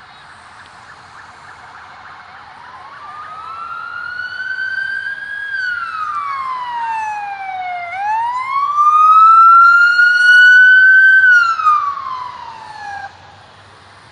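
Emergency vehicle siren wailing, rising and falling slowly twice as it comes closer and grows very loud, then cutting off suddenly near the end.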